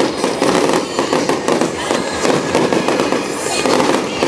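Fireworks display going off: a dense, unbroken run of pops and bangs from many bursts overlapping in rapid succession.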